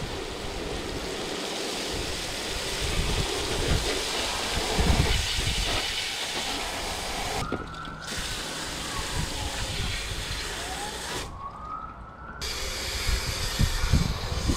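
Garden-hose spray nozzle jetting water onto a grimy diesel intake manifold in a plastic tub, rinsing off oven-cleaner foam, with water splashing into the tub: a steady hiss. The spray stops twice, briefly just past the middle and for about a second near the end, with faint rising whistles around the stops.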